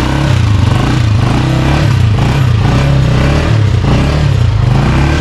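Honda 125 Special Edition motorcycle's single-cylinder four-stroke engine running steadily, heard up close.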